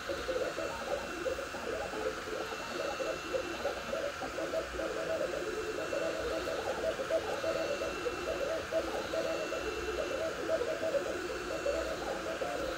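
Two Trees Sapphire Plus CoreXY 3D printer printing at 130 mm/s: its stepper motors whine in short tones that change pitch rapidly with each print move, over a steady fan hiss.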